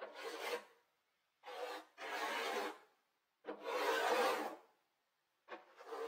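Wide brush dragging thick acrylic paint across a wooden panel: a series of scraping strokes, each lasting about half a second to a second, with short pauses between them.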